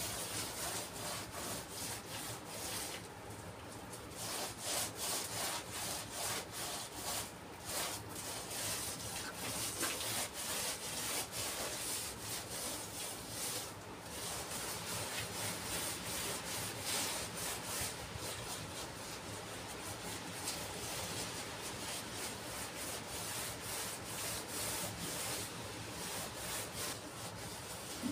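A sponge rubbed by hand over a rough mortar surface, scraping in repeated back-and-forth strokes.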